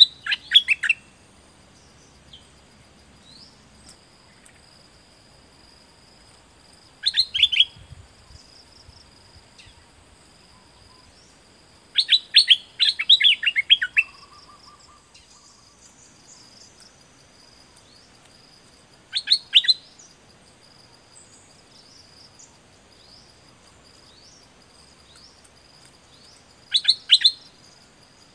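Caged stripe-throated bulbul singing short phrases of quick, bright notes, five phrases several seconds apart. The one near the middle runs about two seconds, and the others are under a second.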